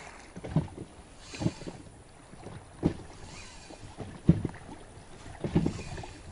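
Small wind-driven waves lapping, with five short, low slaps of water at uneven intervals of about a second.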